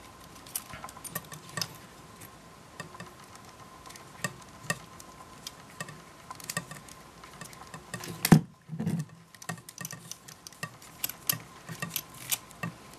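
Leather camera hand strap and its metal fittings being handled and threaded: scattered small clicks and rustles, with one louder knock about eight seconds in.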